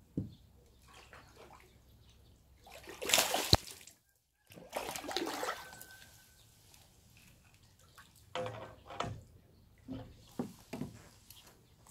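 Water splashing and sloshing from a hooked fish on a long pole rod, with the line slicing through the surface. There is a loud burst about three seconds in, then a string of short splashes near the end as the fish fights.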